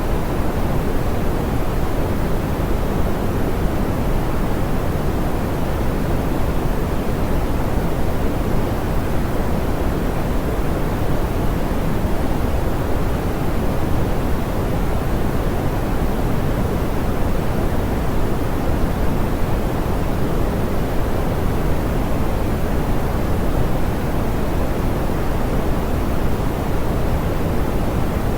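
Steady pink noise, softened and smoothed: an even hiss weighted toward the low end, with the high frequencies rolled off, unchanging throughout.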